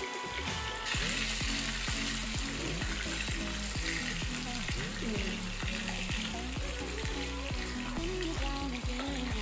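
Chicken pakoras deep-frying in hot oil, a steady sizzle, with background music carrying a regular beat.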